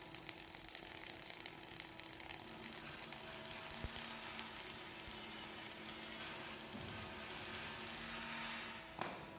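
Flux-cored arc welding on carbon steel: the arc gives a steady crackling hiss while the bead is laid. It stops abruptly with a click about nine seconds in.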